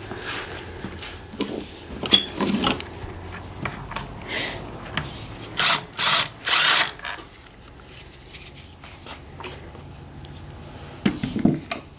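Ryobi cordless power driver with a socket extension spinning out the timing-belt pulley bolts, in several short runs about five to seven seconds in. Clinks of loose sockets and bolts come before.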